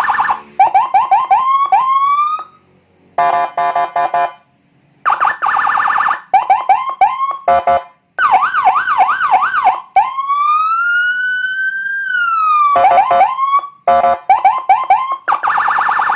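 Custom 'landun' police-escort electronic siren being tested, jumping from one tone pattern to the next with short breaks between them: a fast trill, quick rising chirps, stuttering pulses and a rapid up-and-down sweep. About ten seconds in it holds one slow wail that rises and then falls back, then returns to the quick chirps and trills.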